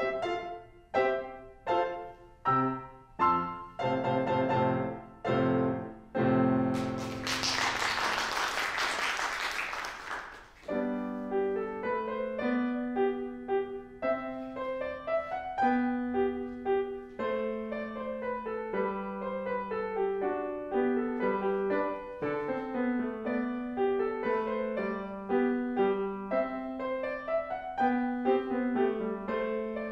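Grand piano: a piece ends with a few loud, separated chords. About seven seconds in there is applause lasting some four seconds, and then a new piece begins with a steady, flowing run of notes.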